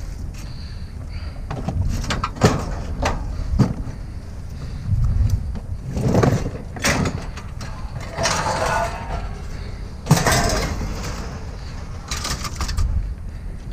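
Scrapyard activity: scattered sharp knocks and clatters, with a scraping, rattling stretch about eight seconds in, over a steady low rumble of vehicles.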